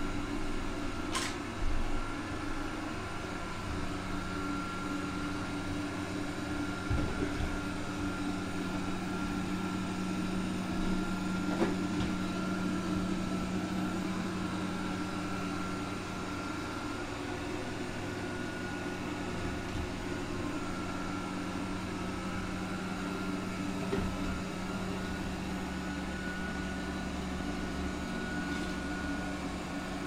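Honiture Q5 robot vacuum running in edge-cleaning mode along the wall, its suction fan and brushes giving a steady hum with a high whine. A few faint clicks come through, about two seconds in, around seven seconds and around twelve seconds.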